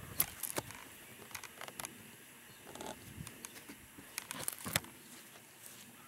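Footsteps through grass with scattered light clicks, knocks and rustles, bunched near the start and again around four and a half seconds in.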